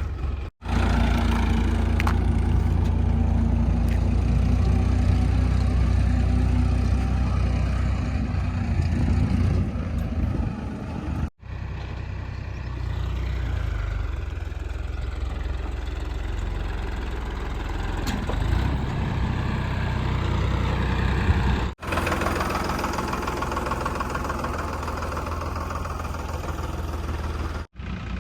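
Heavy diesel engine of a JCB 3DX backhoe loader running steadily at work, with a strong low rumble. The sound drops out abruptly for a split second three times.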